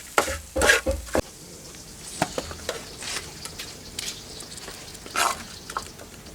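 Food sizzling in a pan while a cooking utensil stirs and clinks against it: a quick run of clatters in the first second, then scattered lighter clicks, with one louder knock about five seconds in.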